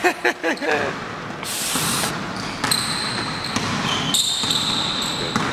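Basketball shoes squeaking on the gym's court floor during play: several drawn-out high squeaks overlapping in the second half, with a brief shout at the very start.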